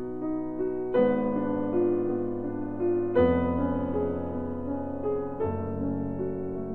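Background piano music: slow, gentle chords that change about every two seconds.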